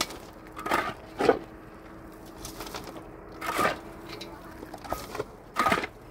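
Four short, sharp scraping knocks at uneven intervals, about half a second to two seconds apart, over a faint steady hum.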